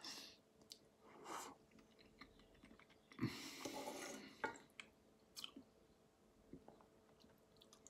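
Faint mouth sounds of a person eating instant noodles: soft chewing and slurping, with a longer, louder noisy stretch about three seconds in.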